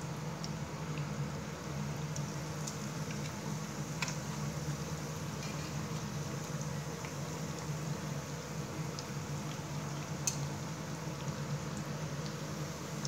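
Breaded bread rolls shallow-frying in hot oil in a pan, the oil sizzling and bubbling steadily. Scattered sharp pops and clicks run through it, the loudest a single click about ten seconds in.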